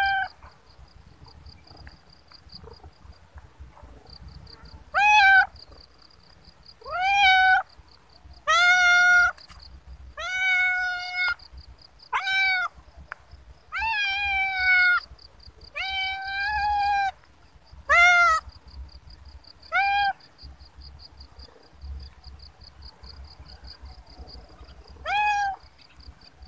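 A calico cat meowing again and again, about eleven loud meows, each rising and then easing down. Some meows are drawn out to about a second, and a longer pause comes before the last one near the end.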